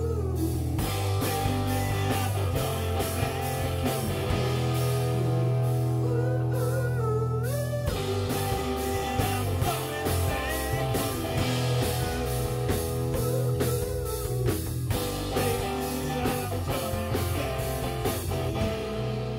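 Rock band playing live: electric guitar and bass chords over a drum kit with a steady beat of snare and cymbal hits. Near the end the drums stop and the last chord rings out.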